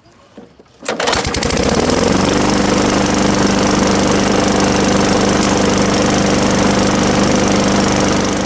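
Craftsman 21-inch lawnmower's 4.5 hp single-cylinder engine starting about a second in, speeding up and settling into a steady run. It now runs on a newly fitted replacement carburetor, which cures its no-start.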